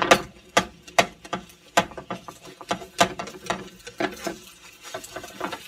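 Spatula scraping and clacking against a frying pan while working under an egg-and-bread omelet to flip it: an irregular run of sharp clicks and short scrapes, a few a second.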